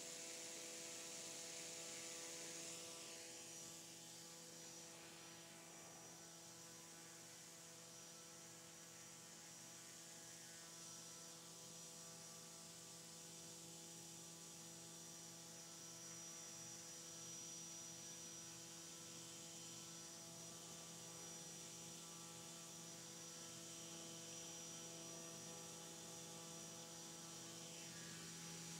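Faint, steady hum of a brushless motor spinning a drone-scale propeller on a thrust test stand at a constant speed of about 5,000 RPM.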